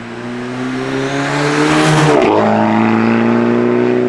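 Tuned Mk8 VW Golf GTI Clubsport's turbocharged four-cylinder accelerating hard toward the listener, its engine note climbing steadily. About halfway the pitch drops suddenly on an upshift of the dual-clutch gearbox, then climbs again in the next gear.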